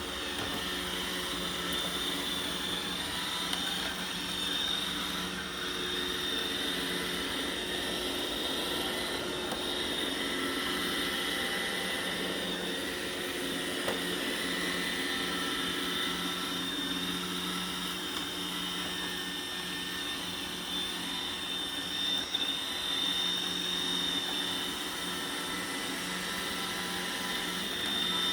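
Roomba robot vacuum running: a steady motor whine and brush hum, with a few light knocks about two-thirds of the way through.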